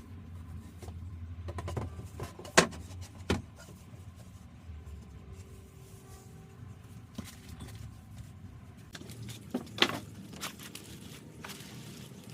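A few sharp knocks and clunks, the loudest about ten seconds in, over a low rumble that fades after the first two seconds.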